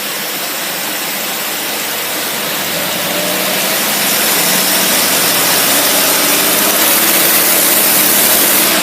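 Boat engine fitted with a Holley 600 CFM vacuum-secondary marine carburetor revving up under load with its propeller in the water: the pitch climbs steadily from about two seconds in and it grows louder, over a steady rushing hiss. It cuts off suddenly at the end.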